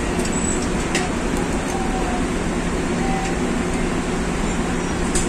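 Steady, loud drone of heavy machinery running, with a constant low hum, and a couple of sharp metal clicks from wrenches on the fan's casing, about a second in and near the end.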